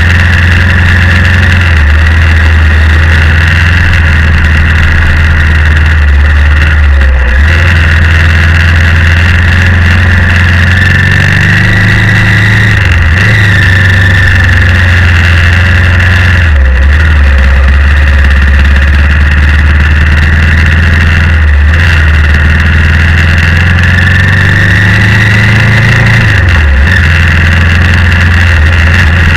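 BMW G650X's single-cylinder engine running loudly while the motorcycle is ridden, its note briefly breaking and changing pitch every few seconds.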